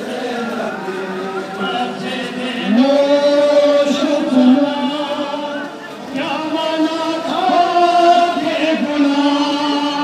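A crowd of men chanting a Shia mourning lament (nauha) in unison, in long held notes. There are two phrases, the second starting about six seconds in after a brief dip.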